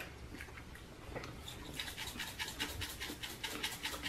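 Hand-held seasoning grinder being twisted over food: a quick, even run of faint rasping clicks, about five or six a second, starting about a second and a half in.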